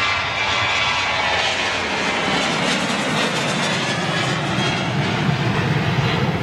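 Boeing 737's twin CFM56 turbofan engines at takeoff thrust as the jet lifts off and climbs away: a steady jet roar. A high whine fades over the first couple of seconds while a deep rumble grows.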